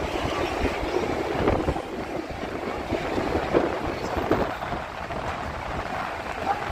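Jammed road traffic running, with wind buffeting the microphone.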